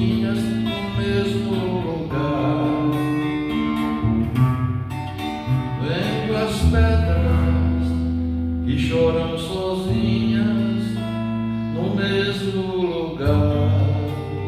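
Instrumental ending of a song, led by acoustic guitar over a steady bass line.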